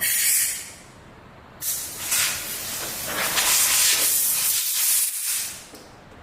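A jet of gas hissing in two bursts: a short one at the start, then a longer one from about a second and a half in that fades out near the end.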